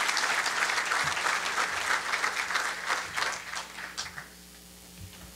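Large audience applauding, the clapping thinning out and dying away about four seconds in. A single sharp knock near the end.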